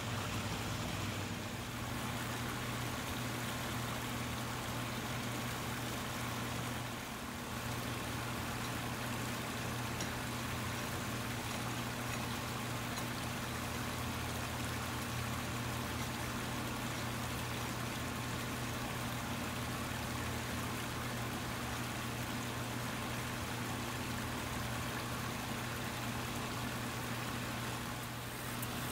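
Garden pond waterfall: water splashing and trickling steadily over stacked rocks into the pond, with a steady low hum underneath.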